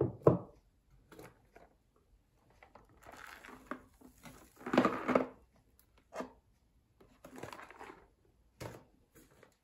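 A glass jar is set down on a wooden tabletop with a sharp knock. Then a cardboard box of sugar cubes is picked up and handled, its packaging rustling, with a few lighter knocks as the grocery packages are moved about.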